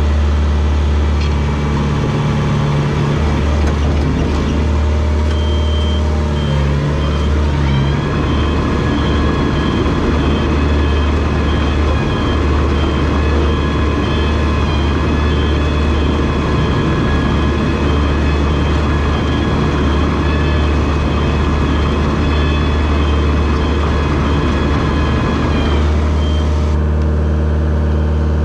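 Diesel engine of a rubber-tracked Komatsu bulldozer running steadily, revving up about a third of the way in and holding there before easing back near the end, with a high-pitched beeping alarm repeating through most of it.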